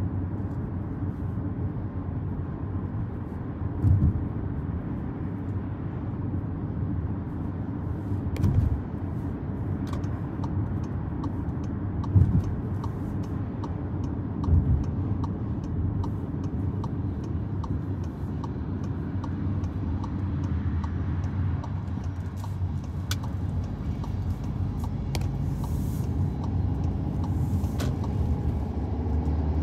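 A car being driven: steady low rumble of road and engine noise, with four brief louder thumps and, in the middle, a short run of light regular ticks.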